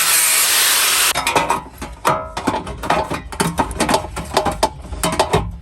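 A power tool, an angle grinder by the look of the work, runs on sheet steel and cuts off abruptly about a second in. Then comes a run of metallic clanks and taps as the thin steel repair panel is handled and set in place.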